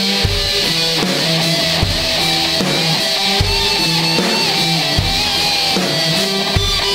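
Rock music with electric guitar and drums, an instrumental stretch with no singing.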